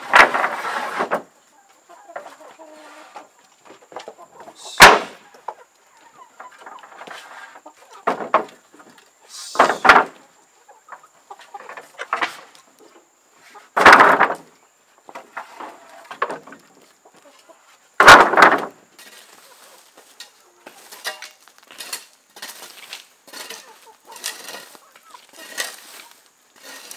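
Heavy wooden planks set down and stacked, each landing with a loud knock or clatter about every four to five seconds, while chickens cluck around them. Near the end, short repeated scrapes of a rake and hoe on dirt.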